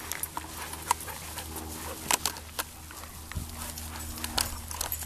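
A pack of dogs trotting through grass: scattered sharp clicks and light knocks, strongest about two seconds in, over a low steady rumble.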